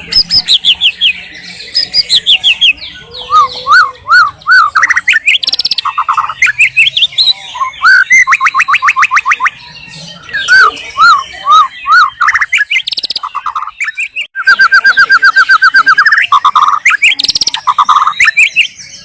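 White-rumped shama (murai batu) singing a long, varied song: loud whistled phrases, runs of repeated arching notes, and fast even trills, with brief pauses between phrases.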